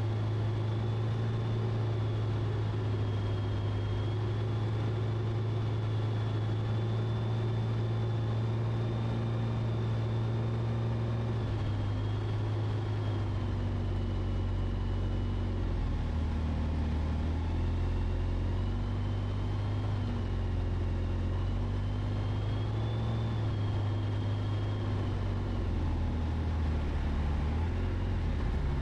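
A light aircraft's piston engine running steadily, heard in the cockpit. Its pitch drops a little about twelve seconds in and again about sixteen seconds in, with a faint high whine wavering above it.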